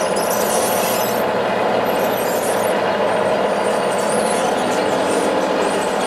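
Radio-controlled scale construction machines running: a steady mechanical drone, with a high squealing whine that comes and goes several times.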